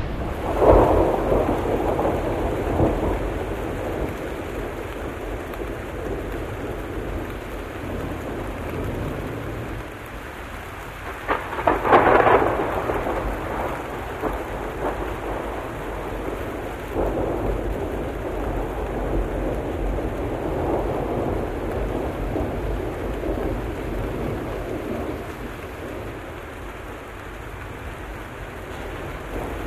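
Steady heavy rain with rumbles of thunder, swelling several times, the loudest peal about twelve seconds in.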